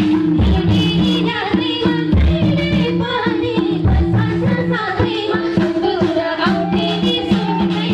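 Nepali dohori folk song: a voice singing a wavering, ornamented melody over sustained instrumental tones and a regular low drum beat.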